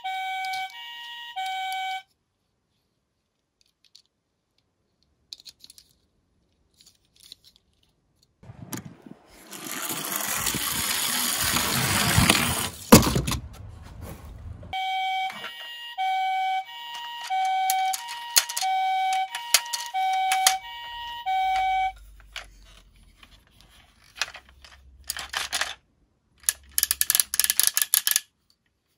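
Toy minicars rolling down a slope with a growing rattle, ending in a sharp clatter as they tumble into a cardboard box. After that, a bright beeping tune plays for several seconds, and near the end there are short bursts of rapid clicking.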